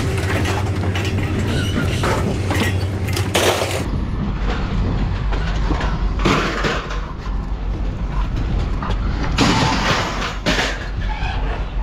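Scrap metal being thrown off a truck onto a pile: a series of clattering bangs, the heaviest near the middle and toward the end, over a steady low rumble.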